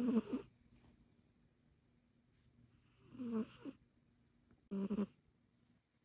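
Sleeping kitten snoring: three short snores a couple of seconds apart, the first right at the start and the last the shortest.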